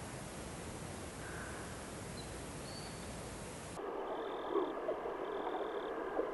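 A steady, even hiss for nearly four seconds, then it switches to trickling, splashing water with many small drips and faint high notes repeating about once a second.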